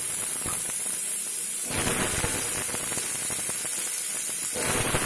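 Diced raw potatoes sizzling as they go into hot mustard oil in a frying pan, a steady hiss of frying that swells a little under two seconds in as more cubes are added.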